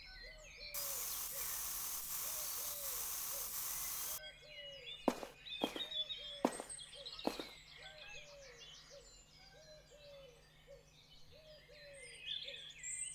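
Bird chirps over a low call that repeats about twice a second. A steady hiss runs from about a second in to about four seconds in, and four sharp knocks follow between about five and seven seconds in.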